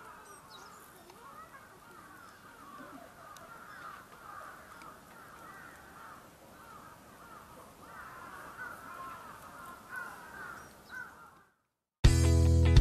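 Many birds calling over one another, a faint continuous chorus of short chattering calls. It cuts off abruptly near the end, and loud music with guitar and drums starts.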